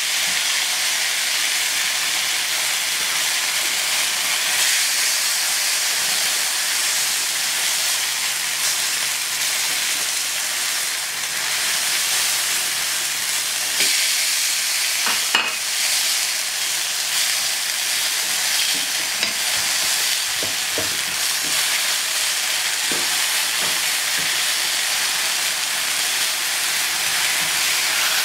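Corn tortillas soaked in birria broth sizzling on a hot flat griddle, a steady frying hiss. A couple of sharp clicks come about halfway through.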